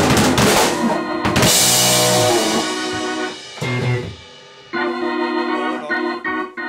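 A rock/fusion band jam closes out. The full band plays loudly with drums and crashing cymbals until a hard hit about a second in. Sustained organ-voiced keyboard chords then ring out over bass, with a short gap before one last held chord near the end.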